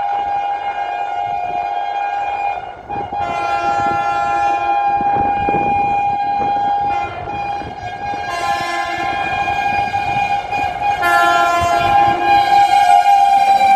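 Electric train's horn sounding several long, nearly unbroken blasts, with short breaks about three and seven seconds in, over the running noise of an approaching train. The horn and the train noise grow louder toward the end as the train draws near.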